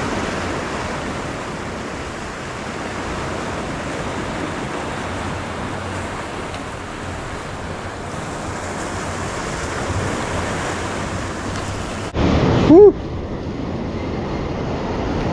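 Ocean surf washing and breaking against rocks below, a steady rushing noise with wind on the microphone. About twelve seconds in there is a short, louder burst with a brief rising-and-falling cry.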